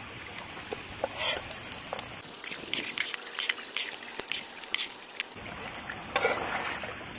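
Hot mustard oil sizzling and crackling in a flat frying pan under shallow-fried besan-coated leaf rolls, with short sharp pops and spatula clicks as the pieces are lifted out.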